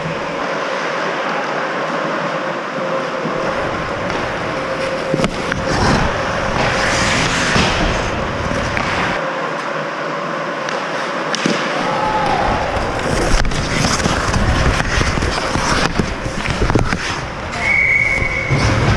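Ice hockey rink play at close range: skate blades scraping on the ice and sticks and puck clacking in a run of short knocks, over a steady hum. A brief high steady tone sounds near the end.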